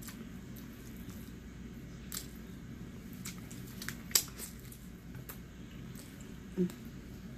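Close-up eating sounds of grilled barbecue chicken being bitten and chewed: wet, sticky mouth noises with scattered sharp clicks, the loudest about four seconds in, and a short low hum near the end.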